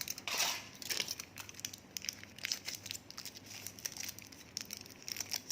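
Aluminium foil crinkling as it is handled, with many quick, irregular crackles.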